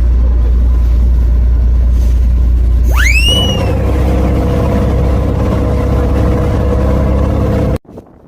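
Ferry boat's engine running steadily with a deep low drone. About three seconds in, a short whistle-like tone rises sharply, and the engine note changes at the same moment; the sound cuts off abruptly just before the end.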